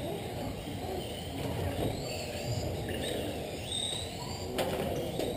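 Electric RC cars running on an indoor track: the high whine of their motors glides up and down as they speed up and slow down, over the hall's echoing background rumble. There is a sharp knock about four and a half seconds in.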